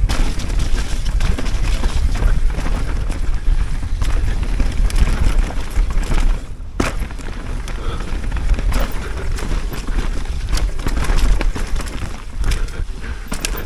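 Mountain bike riding down a muddy forest trail, heard through a head-mounted camera: heavy wind buffeting on the microphone over tyre noise on dirt and the bike rattling over roots and bumps. There is a sharp knock about seven seconds in.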